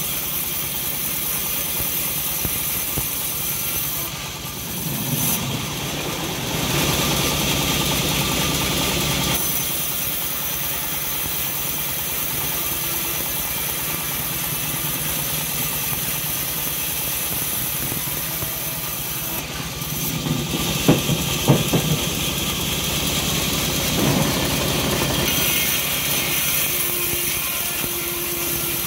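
Homemade bandsaw sawmill running steadily with its engine. The sound grows louder twice for a few seconds as the blade cuts through hard jowar wood, with a few sharp clicks during the second cut.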